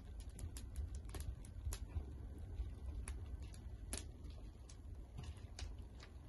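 Wood fire crackling and popping with irregular sharp snaps over a low steady rumble.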